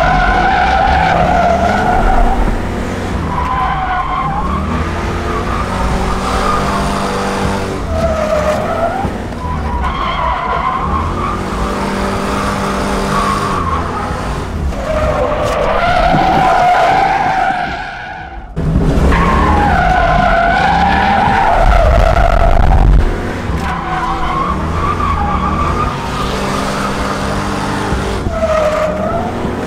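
Car engine revving up and down while the tyres squeal in long wavering howls through drifts, heard from inside the cabin. The sound drops away briefly about eighteen seconds in, then comes back loud.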